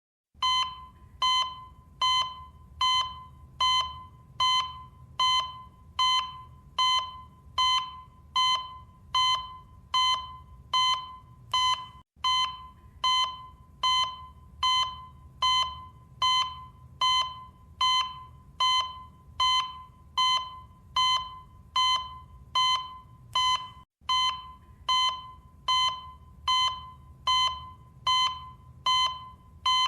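Cardiac monitor beeping in time with a heartbeat, a short pitched beep a little more than once a second, each fading quickly, over a faint low hum. The beeping drops out for a split second about 12 and 24 seconds in.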